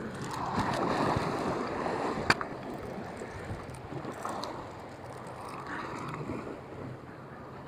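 Small waves washing and splashing against the rocks of a stone breakwater, with wind on the microphone. A single sharp click about two seconds in.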